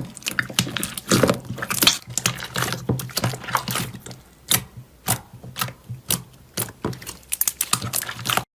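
Slime being squeezed and worked by hand, giving quick, irregular sharp clicks and pops, several a second, that cut off suddenly near the end.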